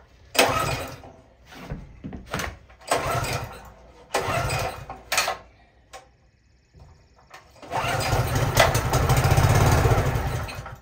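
A pressure washer's small gasoline engine being pull-started on carburetor cleaner sprayed into the intake. Several short recoil-starter pulls, then about eight seconds in it catches, runs for about three seconds and dies out. It firing on the spray shows the engine has spark and compression, which points to a fault in the fuel system.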